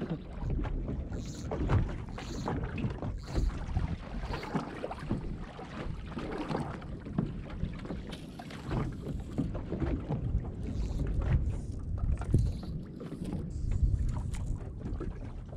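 Wind buffeting the microphone on an anchored small boat rocking in a swell, with water slapping against the hull and irregular knocks.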